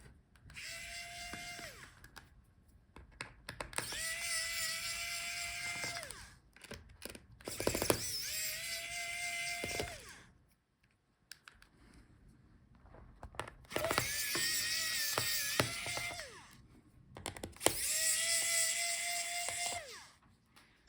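A small electric screwdriver whines in about five separate runs of roughly two seconds each, backing out the screws that hold the laptop battery. Each run rises in pitch as it starts and drops as it stops, with light clicks and taps in the gaps between runs.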